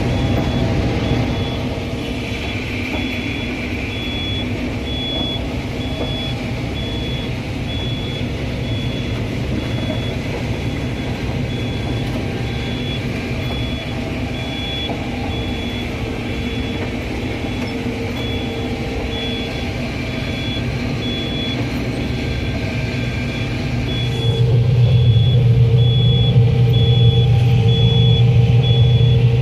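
Combine harvester running steadily, heard from inside the cab, with a high electronic beep repeating evenly throughout. About 24 s in, the machine's drone gets louder and heavier.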